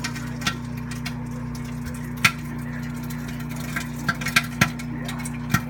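Kitchen dishes and utensils clinking and knocking, several short sharp strikes with a cluster of quick ones around four seconds in, over a steady low hum.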